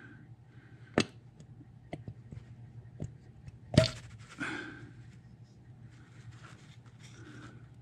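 A few sharp clicks and knocks from a plastic syringe and oil bottle being handled while the syringe is refilled with gear oil, the loudest about four seconds in, over a faint steady low hum.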